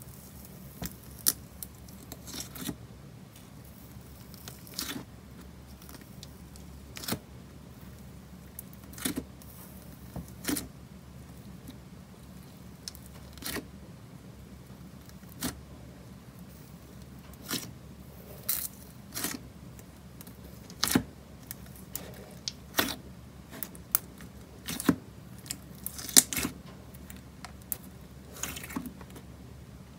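Clear slime with clay noodles being poked, pressed and squished by fingers in a plastic tub, giving irregular sticky clicks and pops about every second or two over a low steady hum.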